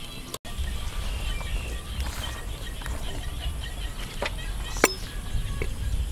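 Metal spoon knocking a few times against a clay cooking pot, the loudest knock about five seconds in, over a low steady rumble.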